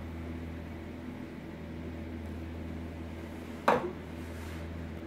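Steady low hum from the espresso machine, with one sharp knock near the end as the stainless steel milk pitcher is set down.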